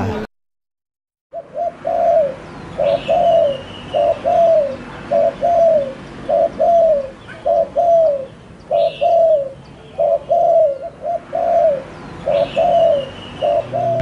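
Caged zebra dove (perkutut) cooing, starting about a second in: a long, even run of short falling coos in pairs, repeated under a second apart. Three brief higher chirps sound in the background.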